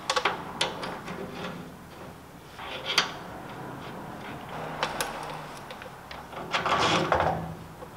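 Irregular metal clicks and clinks of a hand socket tool on the ball-joint nut of a steering knuckle, then a louder stretch of rattling and clatter about seven seconds in as a coilover is handled against the suspension.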